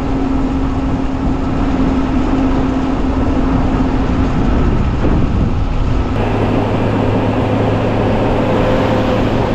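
A vehicle driving on a road, with a steady engine drone and road noise. The drone's pitch changes abruptly about six seconds in to a lower, different hum.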